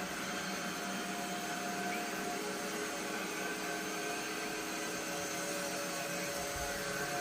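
LG Roboking AI all-in-one robot vacuum running, its suction fan giving a steady whir with a faint constant whine.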